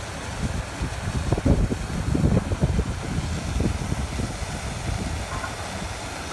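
Wind buffeting the phone's microphone: an uneven low rumble in gusts, strongest in the first half.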